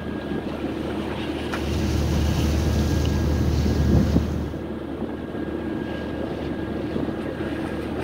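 Ship under way: a steady machinery hum with water rushing along the hull. Wind buffets the phone's microphone from about one and a half to four and a half seconds in.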